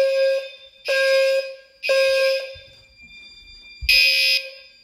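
Gentex fire alarm horns sounding in the temporal-3 evacuation pattern: three half-second blasts about a second apart, a pause of about a second and a half, then a fourth blast about four seconds in that starts the next round. The system is in alarm after a smoke detector was set off.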